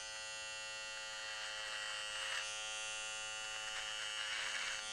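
Electric hair trimmer running with a steady hum as its blade cuts beard hair along the line behind the jaw, with a rougher rasp as it bites into the hair about two seconds in and again near the end.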